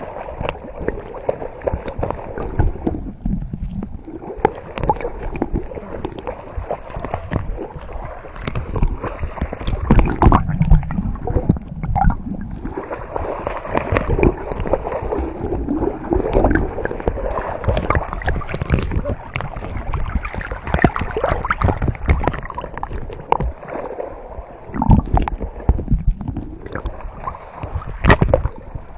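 Water sloshing and gurgling against a camera bobbing half-submerged at the surface. It sounds muffled, with irregular small splashes and knocks and a sharper splash near the end.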